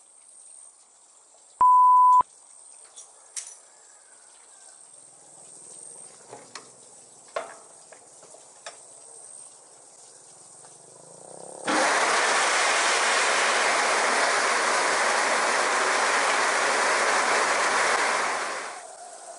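A single short beep about two seconds in, then a few scattered knocks. From about twelve seconds a Nutmec 180E green-walnut hulling machine runs with a loud, steady rushing rattle as hulled walnuts discharge onto its tray, stopping shortly before the end.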